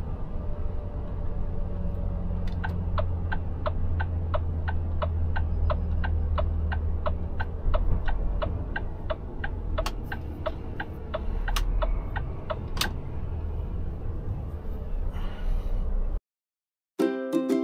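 Low running drone inside the cab of a Volvo FH Aero truck, with the turn-signal indicator ticking about three times a second through most of it. The sound cuts out near the end and ukulele music begins.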